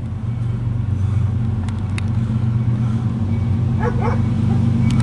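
Diesel engines of a CSX loaded coal train's lead locomotive approaching, a steady low rumble that grows louder.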